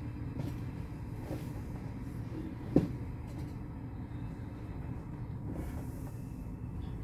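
Double-stack intermodal freight cars rolling past with a steady low rumble of wheels on rail, broken by one sharp clank a little under three seconds in.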